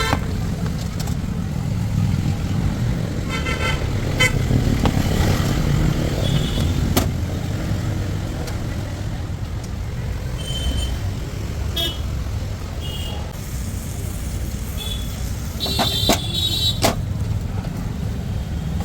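Busy road traffic running steadily, with vehicle horns honking several times: one honk about three seconds in and a cluster of short, higher beeps later on. A few sharp clicks or knocks are heard as well.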